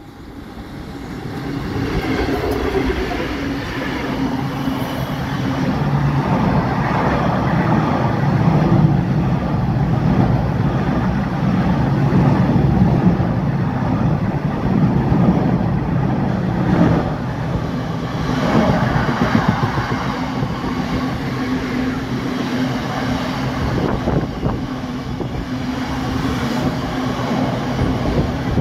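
A Class 66 diesel freight locomotive passes at speed, growing louder over the first couple of seconds. It is followed by a long train of hopper wagons, their wheels rumbling and clattering steadily over the rails.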